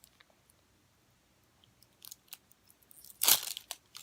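Plastic wrapping on a putty container being torn and crinkled: a few scattered crackles about two seconds in, then a louder burst of crinkling just past three seconds.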